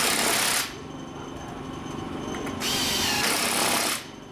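Handheld power tool run in two bursts of about a second each, its motor whine rising at the start of the second burst.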